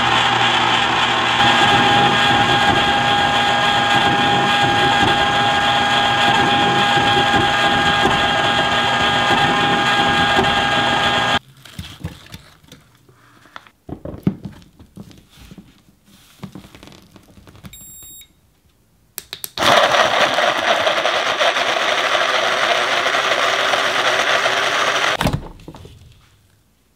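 Cuisinart ICE-30BC ice cream maker running, its motor turning the dasher through the freezing frozen yogurt with a steady hum and whine, cut off abruptly near the middle. Then a few clicks and knocks of handling, and a small electric food chopper whirring for about six seconds, ending with a knock.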